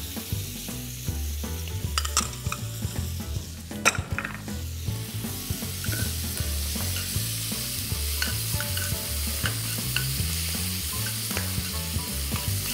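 Sliced onions sizzling in melted butter in a hot frying pan, stirred with a metal spoon. The spoon clicks and scrapes against the pan, loudest about two and four seconds in, over a steady sizzle.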